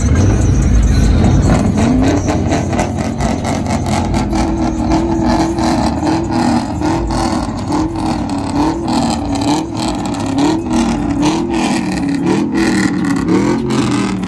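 Pickup truck engines revving over and over as trucks drive slowly past, the pitch rising and falling every second or so.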